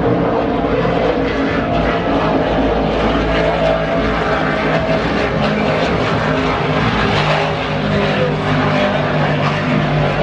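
Offshore racing powerboats' engines running at full power on the race course, a loud continuous drone whose pitch wavers slightly as the boats pass.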